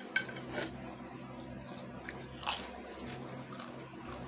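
Lay's Stax potato crisps being crunched and chewed: a few short, sharp crunches, the loudest about two and a half seconds in.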